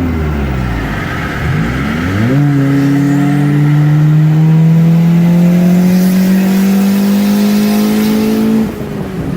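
Turbocharged car engine revving under acceleration: the revs dip, climb sharply about two seconds in, then rise slowly and steadily through a long pull before dropping off near the end. The wastegate has just fallen off, so the engine is making little or no boost.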